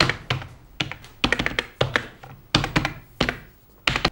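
Heavy-handed typing on a computer keyboard: hard keystrokes in quick bursts with short gaps between them.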